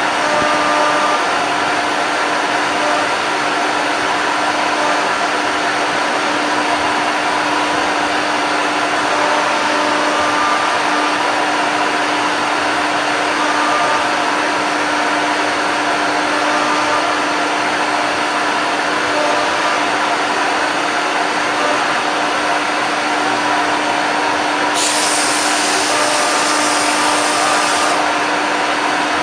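Stepmores 1325HL ATC CNC router spindle running and cutting as it engraves a door: a steady mechanical noise with a constant hum. For about three seconds near the end, a brighter hiss joins in.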